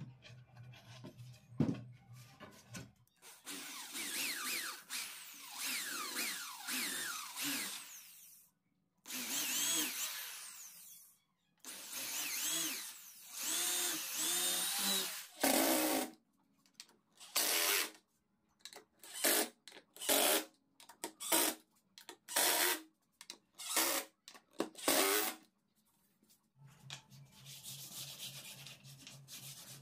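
Cordless drill boring countersunk holes into a wooden strip. The motor runs in several long stretches whose pitch sweeps up and down as the bit loads, then in about a dozen short bursts. A steady low hum is heard at the start and again near the end.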